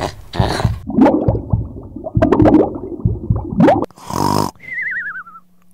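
Cartoon snoring sound effect about four seconds in: a snorting inhale followed by a wavering whistle that falls in pitch. Before it comes a run of short, irregular sounds.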